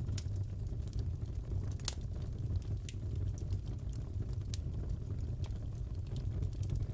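Crackling fireplace: a steady low rumble of burning logs with scattered sharp pops and crackles, one sharper pop about two seconds in.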